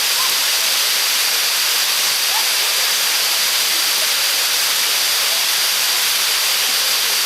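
River water pouring over a small dam, a steady, even rushing hiss that does not change.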